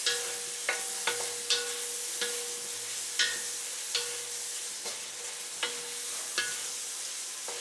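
Chopped chicken hearts, gizzards and onions sizzling in hot oil in a pan while being stirred. A utensil knocks against the pan about ten times, a little more than once a second, and the pan rings briefly after each knock.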